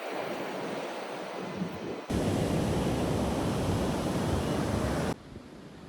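Sea surf washing onto the beach with wind buffeting the microphone, in edited pieces that switch abruptly about two seconds in and again near the end. The middle stretch is the loudest, with a heavy low wind rumble.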